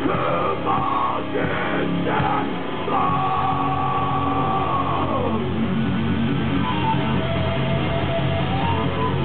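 Heavy metal band playing live: shouted vocals over distorted electric guitars, bass and drums. About three seconds in a long held high note comes in and slides down after a couple of seconds, and the guitars carry on underneath.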